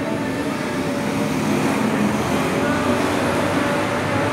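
Steady background din of a fast-food eatery, a continuous rumble with faint distant voices in it.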